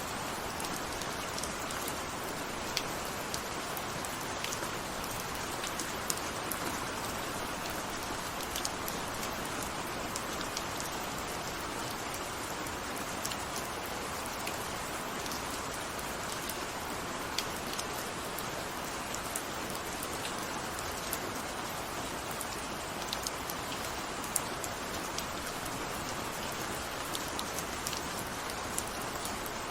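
Steady rain falling, an even hiss with scattered sharper drops hitting a surface.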